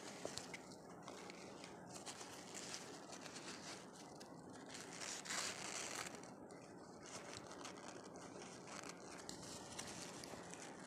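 Faint rustling and crinkling of a ribbon and tissue paper being handled as the ribbon is tied around a paper-cup snowman's neck, louder for a moment about five seconds in.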